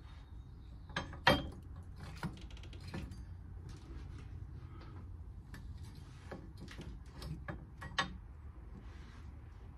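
Scattered light clicks and knocks of hand tools and metal parts being handled during work on a van's drive shaft, with one sharp knock about a second in and another near the end.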